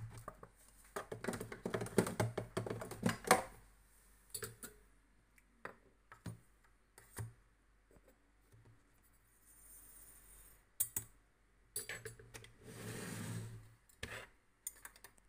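Light clicking and rattling of shotgun-shell reloading gear being handled: smokeless powder tipped from a brass balance pan and a brass funnel set in a plastic shotshell. The clicks are dense for the first few seconds, then scattered, with a short sliding hiss near the end.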